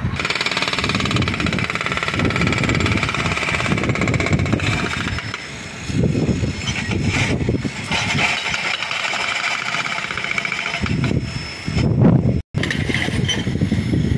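Construction-site noise: machinery running with a rapid mechanical hammering, over irregular wind buffeting on the microphone. The sound drops out for an instant near the end.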